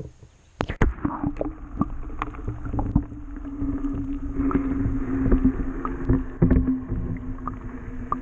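A GoPro Hero 4 Session's microphone plunging into a pond: sharp splashing knocks just under a second in as it goes under, then muffled underwater rumble with scattered clicks and a steady low hum.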